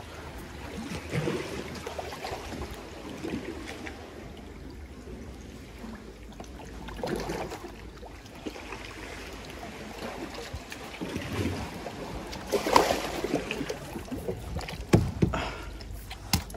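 Water splashing and dripping around a kayak as it is paddled, in uneven strokes, with a few louder splashes in the last few seconds.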